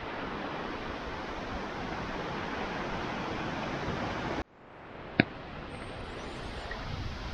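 Steady, even outdoor rushing noise with no voices. It cuts off abruptly a little over four seconds in and comes back slightly quieter, with a single sharp click about five seconds in.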